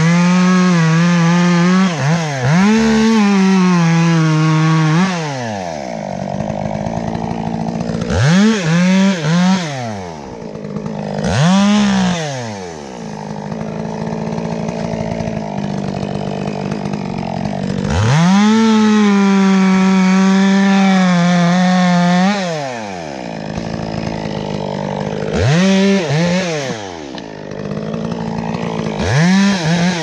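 Gas top-handle chainsaw cutting tree limbs, held at full throttle for several seconds at the start and again in the middle, falling back to idle in between with a number of quick throttle blips that rise and fall.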